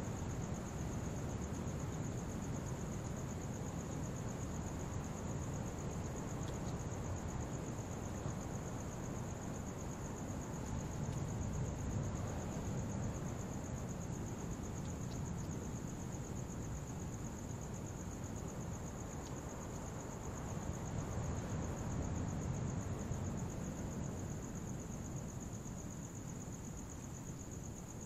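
Crickets trilling steadily at night, a continuous high chorus, over a low rumble that swells and eases slowly. A few faint ticks stand out now and then.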